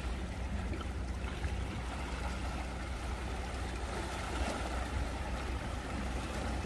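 Small waves washing against breakwater rocks: a steady, even wash of water noise with a low rumble underneath.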